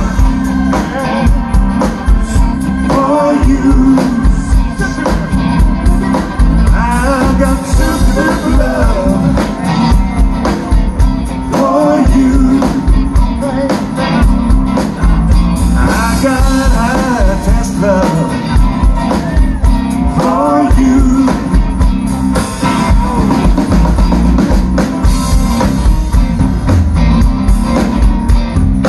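Live rock band playing at full volume: electric bass, electric and acoustic guitars, keyboard and drum kit, with wavering melodic lines over a steady beat.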